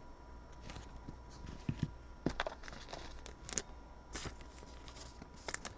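Trading cards being handled on a tabletop: faint rustling with scattered light clicks and ticks, the sharpest about three and a half seconds in.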